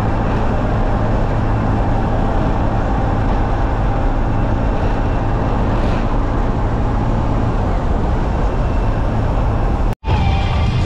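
Motorcycle cruising at road speed: steady wind rush over the microphone with the engine's low drone underneath. The sound drops out for an instant near the end.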